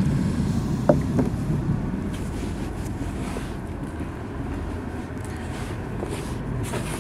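Steady rumble of car traffic crossing the road bridge overhead. About a second in come a couple of short, sharp knocks as a plastic groundbait riddle is set down on the concrete step.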